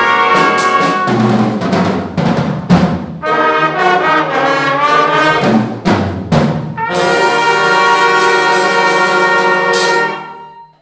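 School band with a prominent brass section playing the closing bars of a piece, brass melody over drum hits. About seven seconds in the band settles on one long held chord, which ends with a crash near the end and then dies away.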